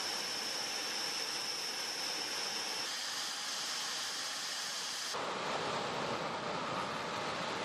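Panavia Tornado GR4 jets' RB199 turbofan engines running as the jets taxi: a steady rushing noise with a high, even turbine whine. The whine and rush shift abruptly about three seconds in, and again about five seconds in, where the whine drops away and the rush turns lower.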